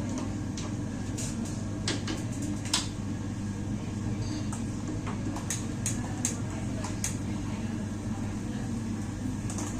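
Dishes and kitchen utensils clinking now and then, about five sharp knocks, the loudest a few seconds in, over a steady low hum of kitchen machinery.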